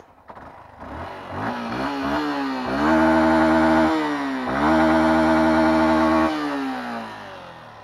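Yamaha Fazer 150 UBS's single-cylinder four-stroke engine, on its stock exhaust, revved with the bike standing. The note climbs, holds at high revs for about a second, dips briefly, holds high again for nearly two seconds, then falls back toward idle near the end.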